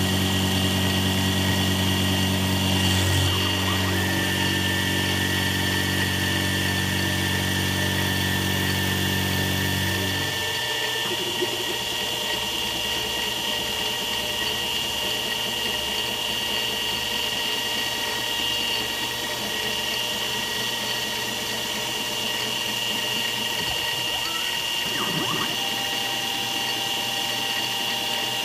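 X2 CNC mini mill running a surfacing pass, its end mill cutting graphite-impregnated nylon: a steady motor whine, with a deep hum that drops out about a third of the way through.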